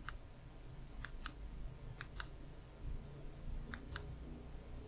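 Small plastic button on a handheld presentation remote being clicked, faintly: four quick double clicks, a press and a release each, spread through the pause.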